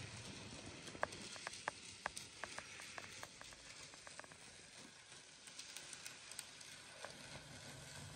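Model train running on the track: a faint hiss, then a quick string of small clicks, about a dozen over three seconds starting about a second in, from the wheels on the rails. A low motor hum comes back near the end.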